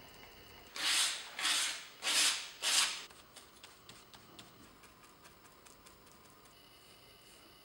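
A stiff paint brush scrubbing paint onto a rough, textured surface in four scratchy strokes of about half a second each, followed by faint light ticks of dabbing.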